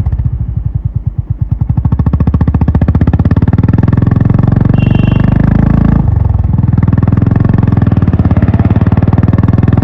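Honda H'ness CB350's single-cylinder engine and exhaust running as the bike pulls away, its firing pulses quickening over the first few seconds. About six seconds in there is a brief drop, as at a gear change, and then the engine runs on steadily.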